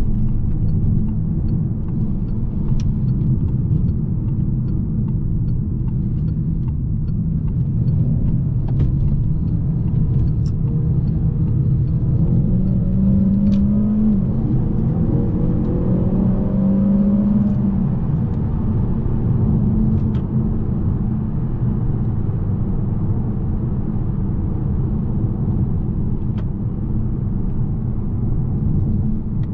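Peugeot 508 PSE plug-in hybrid on the move: a steady low driving rumble, with a hum that rises in pitch for a few seconds around the middle.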